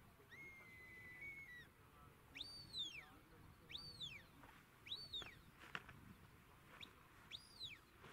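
Shepherd's whistle commands to a working sheepdog: one long level whistle, then four short notes that each rise and fall in pitch, heard faint over open ground.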